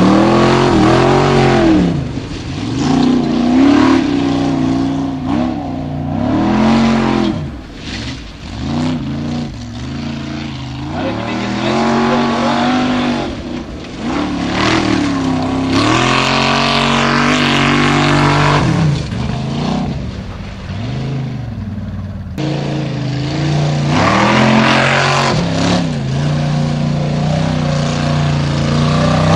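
Formula Offroad race jeep's engine revving hard and easing off again and again, the pitch climbing and dropping in repeated surges as it drives across loose gravel and up a steep dirt slope.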